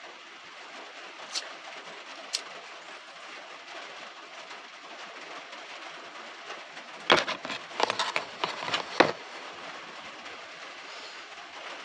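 Light rain pattering on the roof of a van, heard from inside as a steady hiss. Two sharp clicks come early, and a quick run of clicks and knocks from something being handled inside comes about seven to nine seconds in.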